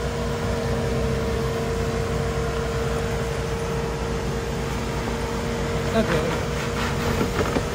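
An off-road vehicle's engine running steadily at low revs: a constant low rumble with a steady hum. Faint voices come in near the end.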